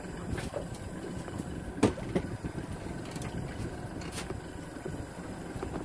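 Small outboard motor running steadily at trolling speed under a low haze of wind and water. A few sharp knocks cut through it, the loudest about two seconds in and another about four seconds in.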